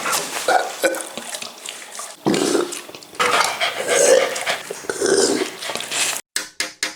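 A Labrador Retriever's throaty burps and grunts in quick succession, the louder ones starting abruptly about two and four seconds in. Near the end the sound is chopped into short pieces that cut off suddenly.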